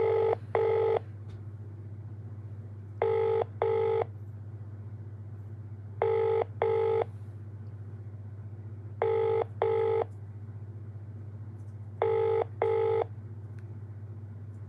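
British double-ring telephone ringback tone through a phone's loudspeaker: five "brr-brr" double rings, one every three seconds, the called phone ringing and not yet answered.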